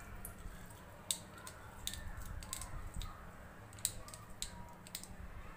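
Hinged plastic hand-held lemon squeezer pressed by hand on half a lemon, giving a few faint, scattered clicks.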